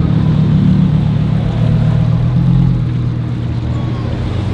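A car engine running with a steady, low rumble, easing off a little about three seconds in.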